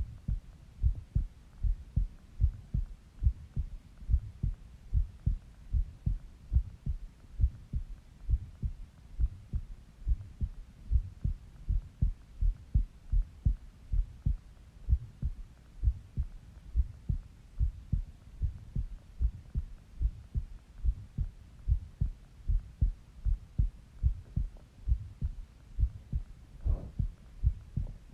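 A human heartbeat heard close up through the chest: steady, regular lub-dub double beats.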